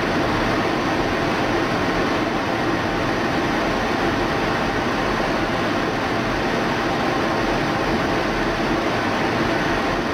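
Steady cockpit noise inside an F-16 Fighting Falcon in flight: engine and rushing air heard through the canopy as an even, unbroken roar.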